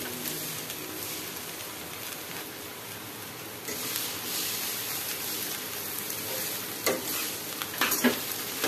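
Cooked rice being stirred and tossed with a spatula in a stainless steel pan over heat, a steady rustling, sizzling hiss that grows louder about midway. Near the end come a few sharp scrapes and knocks of the spatula against the pan.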